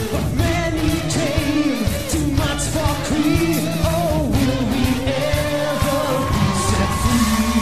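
Male rock vocalist singing live into a microphone over a loud rock band with electric guitar and drums.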